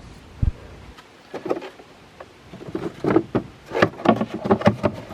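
Engine air filter and plastic airbox being handled during a filter swap: a dull knock, then a busy run of clicks, knocks and rustles of the pleated filter and housing.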